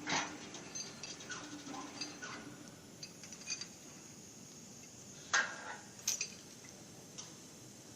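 A few sharp metallic clinks and knocks. The loudest come right at the start and at about five and a half and six seconds in. A faint steady hum fades out in the first few seconds.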